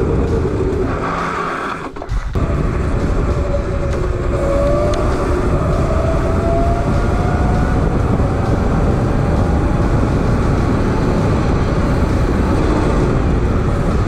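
Homemade electric vehicle with a 72 V QS138 motor driving on an asphalt road: a steady rush of wind on the microphone and tyre rumble, with a faint motor whine that rises slowly in pitch as it gains speed. The sound dips briefly about two seconds in.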